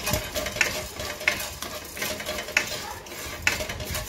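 A spoon stirring and scraping whole spices (fennel seeds, cinnamon, peppercorns, cloves, cardamom) around a nonstick frying pan as they roast, with a scrape or tap about once a second.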